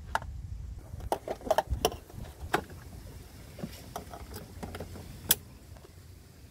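Scattered clicks and knocks of plastic hose fittings and tubing being handled and pushed onto a 12-volt water pump, with a cluster of knocks a second or two in and the sharpest click about five seconds in, over a low rumble.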